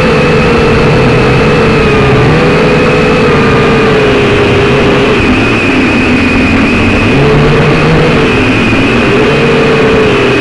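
Syma X5C-1 quadcopter's four small brushed motors and propellers buzzing in flight, picked up by its onboard camera. The pitch wavers up and down as the motors keep adjusting, over a low rumble of wind buffeting.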